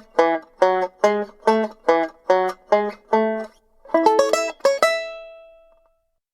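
Banjo played solo: the same plucked chord repeated about twice a second, then a quick run of notes about four seconds in, the last note ringing out and fading away.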